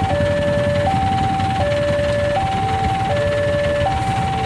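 Railway level-crossing warning alarm sounding: an electronic two-tone signal switching evenly between a higher and a lower tone, each held about three-quarters of a second, warning that a train is approaching with the barrier down. A steady low rumble runs beneath it.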